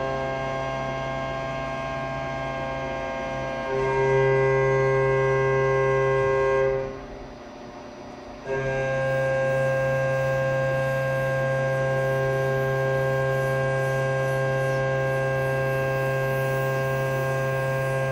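CNC vertical milling machine's spindle and drives running with a steady whine while milling an aluminium plate. The whine steps louder about four seconds in, drops away for about a second and a half a little past the middle, then comes back abruptly.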